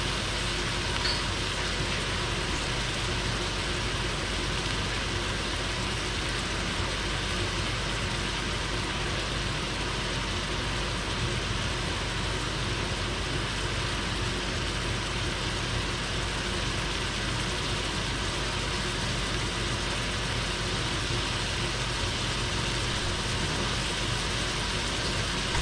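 Kitchen range hood vent fan running steadily, a constant whoosh with a low hum underneath. Swiss chard stems bubble in a skillet on the stove below.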